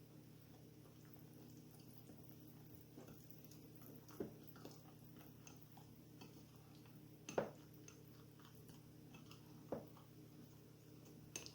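A utensil quietly stirring a small batch of muffin batter in a dish, with scattered faint clicks and four sharper taps against the dish, the loudest about halfway through.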